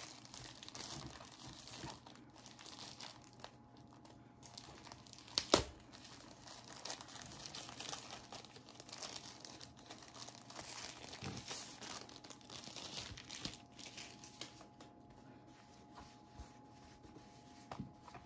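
Tissue paper rustling and crinkling as it is handled and unwrapped by hand, with one sharp tap about five and a half seconds in.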